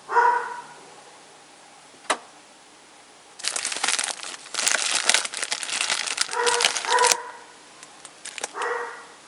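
A dog gives short barks, once right at the start and then a few more near the end, with several seconds of dense crinkling and crumpling in between.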